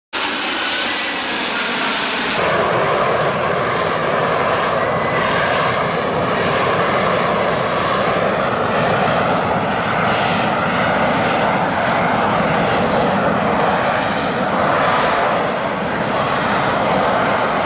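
F-35B fighter jet's F135 turbofan engine running loud: a steady roar with a whine in it. The hissy top end drops away about two seconds in.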